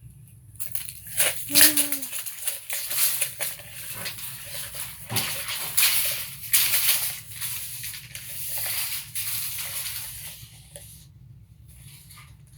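A 30-foot steel tape measure being worked by hand: the blade is pulled out and runs back in, a long rattling scrape that dies away near the end.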